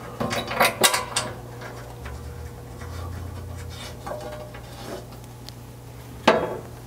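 Light metal clicks and rubbing as button-head bolts are threaded by hand into clip nuts on a skid plate, over a steady low hum, with a single sharper knock near the end.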